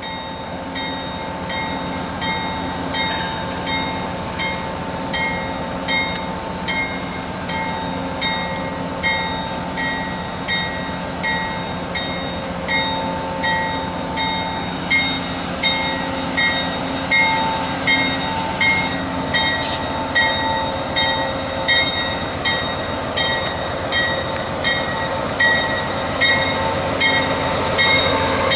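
Locomotive bell ringing steadily, a bit more than one stroke a second, over the steady running of a train. The sound grows louder as the train draws closer.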